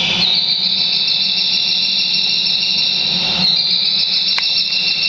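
Bird-deterrent loudspeaker system playing loud, continuous high-pitched electronic bird chirps and squeals, its pitch stepping up slightly about a third of a second in and again near the middle. A steady low hum runs underneath, and a sharp click sounds near the end.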